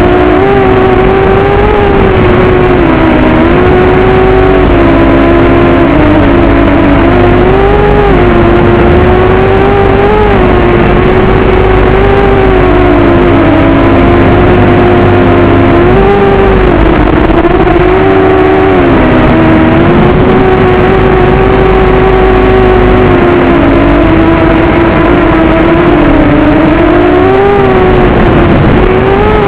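Racing quadcopter's brushless motors and propellers buzzing, the pitch swinging up and down every second or two with throttle, over a steady rushing noise.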